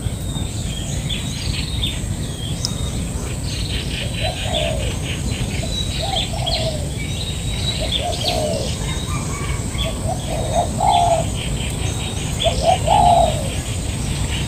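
Spotted doves cooing: a short low phrase repeated several times, loudest near the end. Beneath it, small birds keep up a steady, rapid high chirping.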